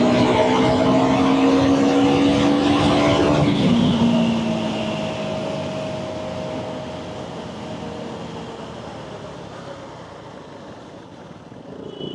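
Motorcycle engine pulling under throttle with its pitch slowly rising, then the throttle closes about three and a half seconds in and the engine note drops and fades as the bike slows down.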